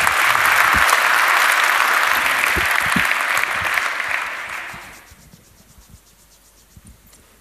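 Audience applauding, dying away about five seconds in, then a few faint knocks.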